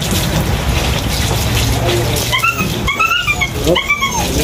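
A husky whining: a run of short, high-pitched whines that bend up and down, starting about halfway through.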